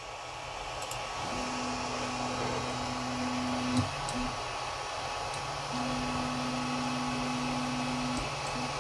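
Tronxy XY2 Pro 3D printer homing. The stepper motor hums a steady tone as the print head runs along its new linear rail to the X endstop, stopping with a light click near four seconds, then makes a short second bump. The bed's motor then hums for a few seconds to its own endstop and gives a short bump near the end, with the cooling fans running underneath.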